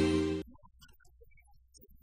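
Intro music ending: a held chord fades and cuts off sharply about half a second in. Near silence follows.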